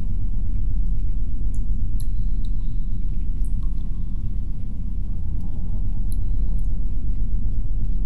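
Steady low rumble of wind, heard muffled as if through thick walls, with a few faint high drips scattered through it.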